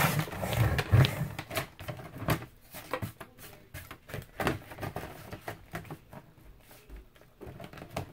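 Cereal-box cardboard being handled and slid into place on a paper trimmer: scattered taps, clicks and rustling. They are loudest and busiest in the first couple of seconds and thin out after that.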